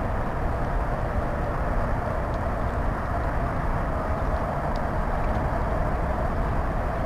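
Steady outdoor background rumble with a faint even hum and no distinct events.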